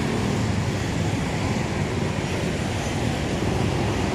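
Steady rushing outdoor noise with a low rumble, without any distinct events.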